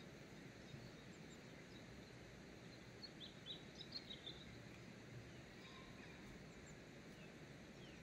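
Near silence: faint open-air ambience, with a few brief, distant bird chirps about three to four seconds in.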